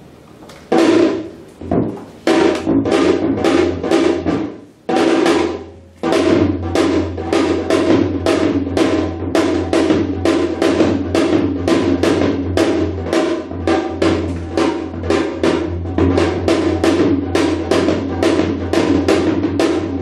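Korean janggu (hourglass drum) playing in shamanic ritual style. A few separate strokes and short phrases open it, then about six seconds in a fast, unbroken drumming rhythm sets in.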